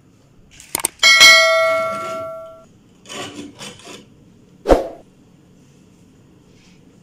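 Subscribe-button sound effect: two quick mouse clicks, then a notification bell ding that rings and fades over about a second and a half. A few softer scraping sounds follow, then a single thump near the end.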